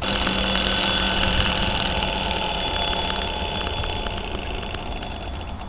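The alarm bell of an 1887 Gustav Becker Boule mechanical alarm clock ringing, set off by turning its hands to the alarm time. It starts suddenly and rings continuously, then slowly fades, with separate strikes heard in the later seconds before it stops near the end.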